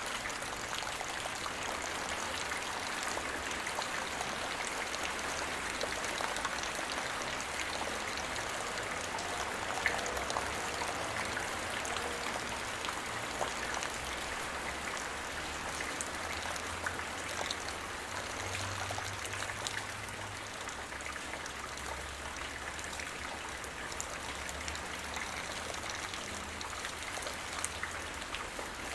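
Steady rainfall, with individual drops pattering on a surface.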